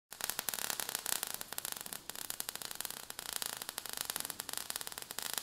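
Crackling sparks sound effect: a dense, irregular crackle of tiny clicks over a steady hiss.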